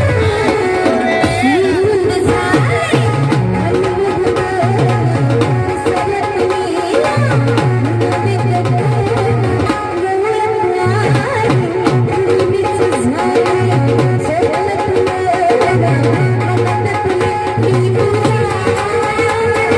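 Indian folk music played by a small band: a hand-drum rhythm under a melody line that bends and slides in pitch.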